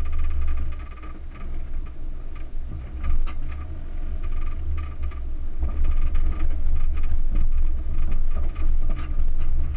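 Four-wheel drive driving slowly over a rough dirt track, heard through a camera mounted on the outside of the vehicle: a heavy low rumble of engine and wind on the microphone, with frequent rattles and knocks.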